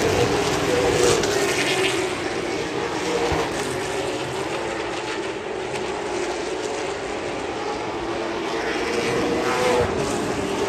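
Late model stock car V8 engines running at racing speed, a steady engine drone.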